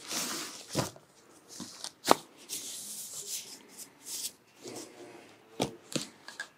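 Plastic bags and cardboard packaging rustling as wireless bodypack units are unwrapped and handled, with a few sharp clicks and knocks of the units being set down, the loudest about two seconds in.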